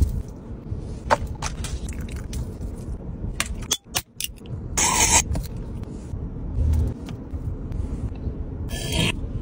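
Aluminium soda can cracked open by its ring-pull, a short hiss about five seconds in, over a steady low rumble. A few light clicks and handling sounds come before it.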